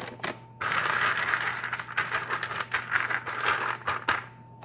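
Raw shelled peanuts rattling and scraping across a parchment-lined metal baking sheet as a hand spreads them out, with many small clicks of nuts knocking together. It starts about half a second in and eases off near the end.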